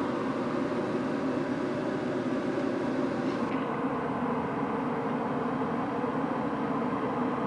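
Steady droning hum of a running heater, with several held tones under an even hiss; the hiss thins slightly about three and a half seconds in.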